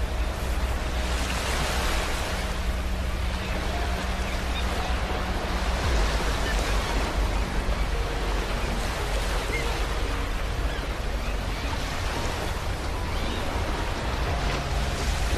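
Sea waves breaking and washing up a beach, the surf swelling about every five seconds over a steady low rumble.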